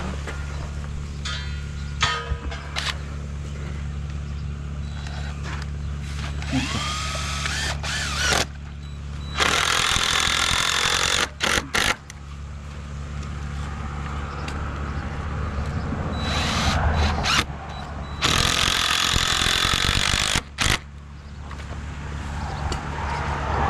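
An engine running steadily at a low hum, with two loud rushing bursts of about two seconds each, roughly nine seconds apart, and a few knocks.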